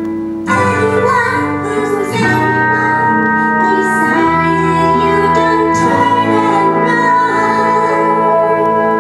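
Music: a song with a sung melody over held instrumental chords that change every second or two.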